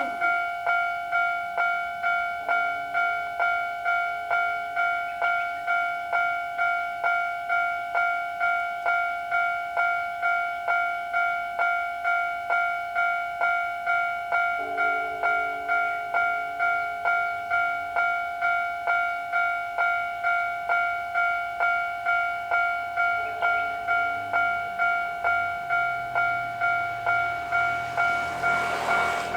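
Japanese level crossing's electronic warning bell ringing the 'kan-kan' alarm steadily, about three strikes every two seconds. A train's noise swells in near the end.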